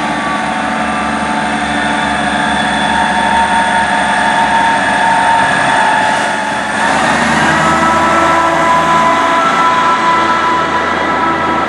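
Two coupled ScotRail Class 158 diesel multiple units running in alongside the platform close by: a loud, steady rumble of engines and wheels with several whining tones over it. The pitch of the whine shifts about six and a half seconds in.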